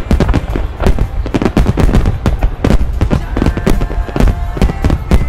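Fireworks display: aerial shells bursting in a dense, rapid barrage of overlapping bangs and booms with crackling, continuous and loud.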